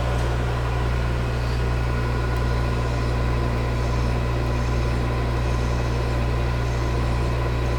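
Metal lathe running steadily with a low hum, while a hand file is worked against the end of the spinning workpiece to clean it up.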